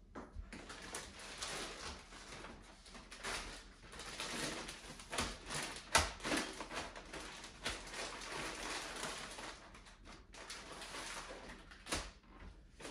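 Plastic zip-top bags crinkling and rustling as they are handled, with a couple of light knocks, the loudest about halfway through.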